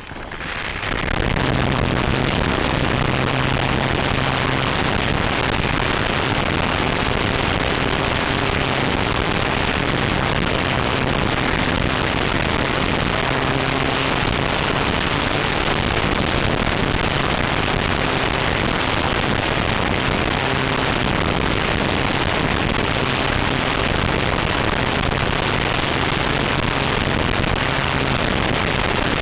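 Loud, steady rush of wind and propeller noise picked up by a camera on the tail of a flying RC model Focke-Wulf FW-190, with a faint hum from the plane's motor underneath. It swells up over the first second or so as the plane powers up, then holds steady.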